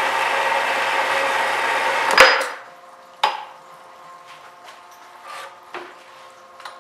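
Horizontal metal-cutting bandsaw running through steel bar stock, then stopping about two seconds in with a loud clunk. A few lighter metallic knocks follow.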